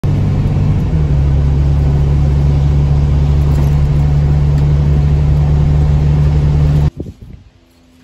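A vehicle driving along a road, heard from inside the cab: a loud, steady low engine drone with road noise. It cuts off abruptly about seven seconds in, leaving only a few faint knocks.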